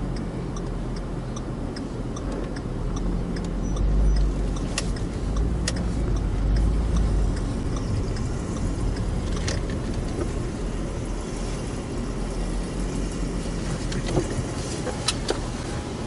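Ford FPV GT-F's supercharged V8 heard from inside the cabin, running at low speed as a steady low rumble that swells briefly a few times. There are a few light clicks.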